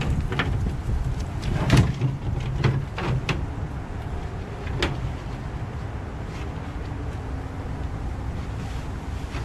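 Plastic bagger chute tube knocking and scraping against the lawn tractor as it is worked into place: a handful of sharp knocks in the first five seconds, then mostly a steady low rumble.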